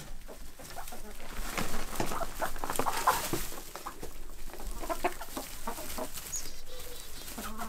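Chickens clucking as they crowd round and peck at pieces of bread on straw, with many short taps and rustles.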